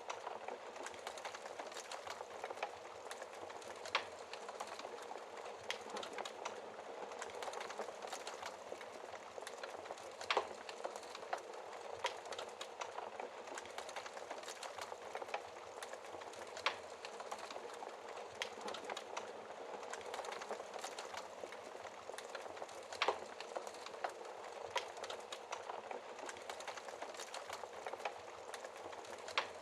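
Wood fire burning behind a glass shield: steady fine crackling and hiss, with sharper, louder pops every few seconds.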